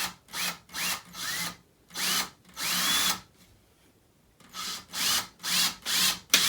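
Cordless power driver driving a screw into a furniture panel in short trigger pulses, the motor whining up in pitch at each pulse. Several quick bursts and one longer one, a pause of about a second, then more short bursts.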